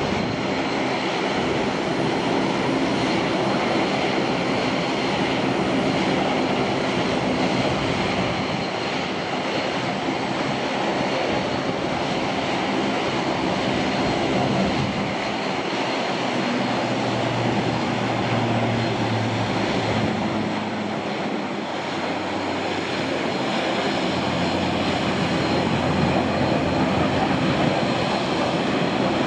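McDonnell Douglas MD-82 airliner's rear-mounted Pratt & Whitney JT8D turbofans running as the jet comes in, touches down and rolls out along the runway. A steady jet roar with a thin whine over it, and a deeper hum rising for a few seconds around the middle.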